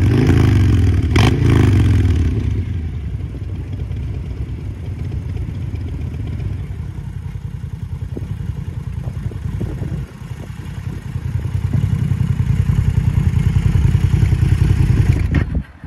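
Custom Harley-Davidson Fat Boy 114's Milwaukee-Eight V-twin through an aftermarket exhaust, revved in quick blips for the first couple of seconds, then settling to a steady idle. The idle dips briefly about ten seconds in, grows louder again from about twelve seconds, and cuts off just before the end.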